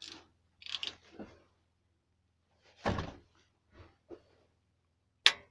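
Hand socket driver working a tight 10 mm crankcase-cover bolt on a small single-cylinder engine: a handful of separate metal knocks and clicks, with a sharp, loud click near the end. The bolt is tightly done up.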